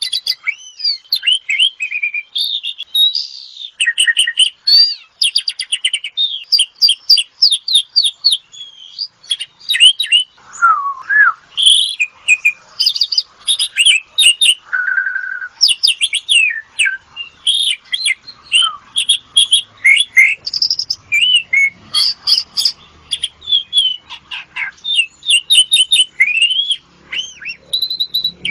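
Asian pied starling (jalak suren) singing without pause: a varied stream of whistles sliding up and down, broken by fast runs of clicking, rattling notes.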